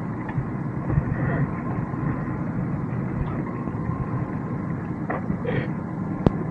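Steady low rumble and hiss of wind and water around a center-console fishing boat, with one sharp click about six seconds in.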